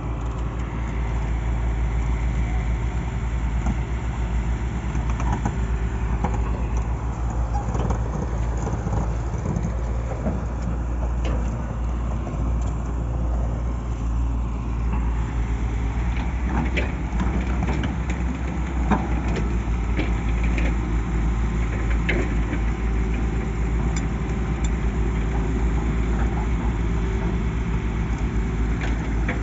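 Diesel engines of Tata Hitachi crawler excavators running steadily, a low continuous hum. Scattered knocks and clanks come in during the second half.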